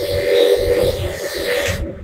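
Corded electric pet clipper running with a steady hum as it shaves a dog's coat; a higher hiss over it cuts off sharply near the end.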